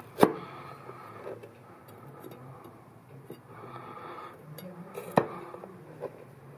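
Chef's knife cutting down through the flesh of a red bell pepper on a wooden cutting board, with soft slicing between two sharp knocks of the blade on the board, about a quarter second in and about five seconds in, and a few lighter ticks.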